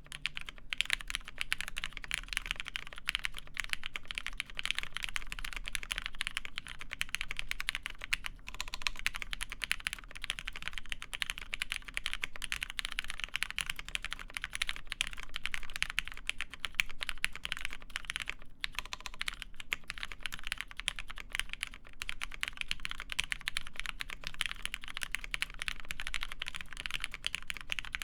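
Fast, continuous typing on a mechanical keyboard with lubed Cherry MX Black linear switches, an aluminium plate and GMK keycaps, with brief pauses about a third and two thirds of the way through.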